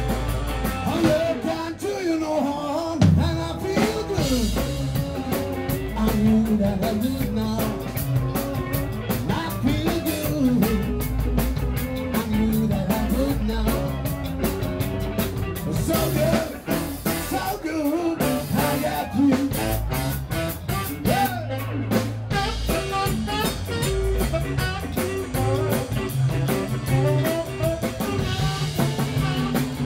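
Live band playing a blues-style number through a PA: drum kit, upright double bass, electric guitar and saxophone, with a lead line from the front man at the microphone.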